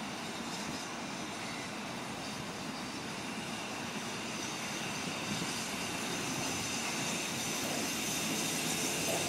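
BR Britannia class 4-6-2 Pacific steam locomotive No. 70000 approaching with its train, exhaust rising from the chimney: a steady rushing sound that slowly grows louder as it draws near.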